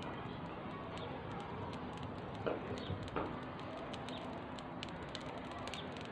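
Small wood fire in a brick stove crackling, with scattered small pops over a steady hiss and two slightly louder knocks near the middle. The fire is being fanned with a plastic lid to make it flare under a frying pan.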